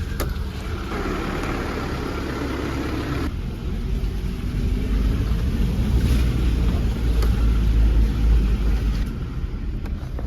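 Kia four-wheel-drive car working its way over a rough, wet mountain track: a rushing noise for about two seconds near the start, then a low engine rumble that grows louder through the middle as the car labours over the hardest stretch.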